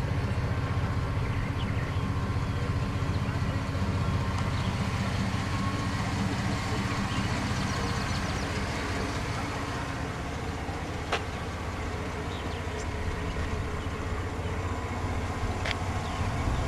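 Motor vehicle engine idling, a steady low rumble, with a couple of faint clicks.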